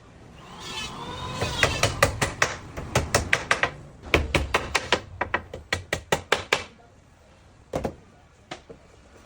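Hammer strikes on wood in quick runs of about four or five a second, followed by two single knocks near the end.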